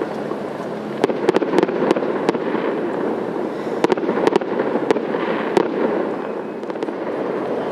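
Fireworks going off: sharp cracks and pops in two clusters, one starting about a second in and another from about four to five and a half seconds in, over a steady background hum.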